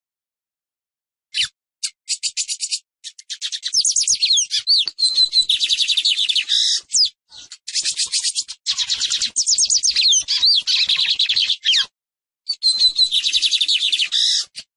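Lined seedeater (Sporophila lineola) singing: a few separate high notes, then a quick run of short repeated notes that leads into long phrases of rapid trills and quick up-and-down whistled sweeps. The phrases are broken by short pauses about 7 and 12 seconds in.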